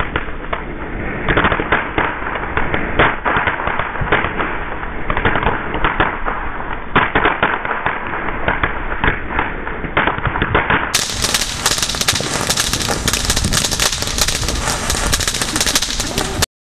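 Ground fireworks fountains crackling and popping densely, with many sharp cracks. The sound is slowed down at first and plays at normal speed from about eleven seconds in, then cuts off suddenly near the end.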